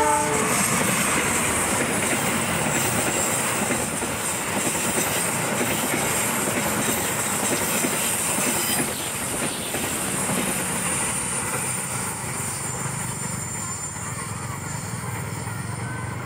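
Argo Parahyangan passenger train passing at speed. Its long horn chord ends about half a second in, then the locomotive and coaches rumble and the wheels clatter over the rails, with a thin high wheel squeal on the sharp curve. The noise eases from about halfway as the train moves away.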